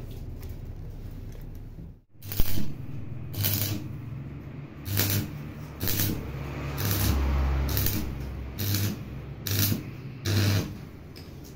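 Stick (arc) welder striking and running short arcs on a steel frame: about nine crackling bursts, each well under a second, with one longer run of about a second near the middle. Each burst carries the welding machine's low hum under load. The bursts start about two seconds in.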